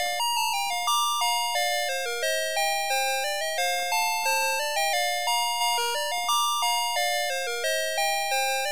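Navystar Press 'N Go toy fire truck's electronic sound chip playing a melody. It is a tinny run of short, evenly paced notes, about three a second, each note dying away after it sounds.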